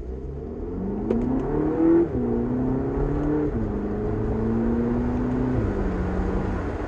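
Engine of a 2022 VW Polo GTI, a 2.0-litre turbocharged four-cylinder, accelerating hard, heard from inside the cabin. Its note rises in pitch and drops back at each of three quick upshifts, about two, three and a half and five and a half seconds in, with a brief loud burst at the first shift. It then holds a steady note near the end.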